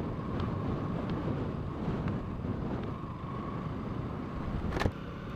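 Motorcycle engine running under steady wind noise on the microphone, with one sharp click near the end.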